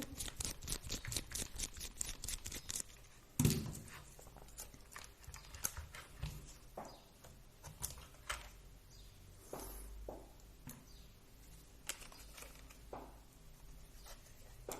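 Small plastic RC car parts and tools being handled on a work surface: a quick run of light clicks and rattles, a single louder knock about three and a half seconds in, then scattered faint taps.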